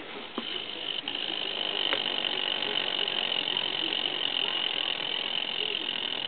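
Corn snake rattling its tail, the tail tip vibrating fast against the enclosure to make a steady dry buzz that starts about a second in, while the snake is feeding on a rodent.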